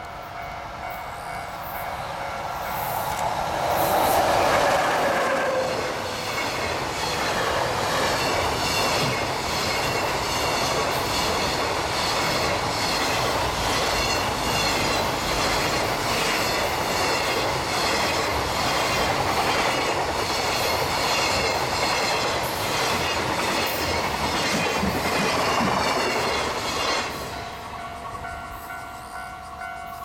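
EF66 electric locomotive passing at speed, loudest about four seconds in with a tone falling in pitch as it goes by. A long rake of container wagons follows, clattering over the rail joints in a steady rhythm until the tail passes and the sound drops away near the end. A level-crossing bell rings at the start and again after the train has gone.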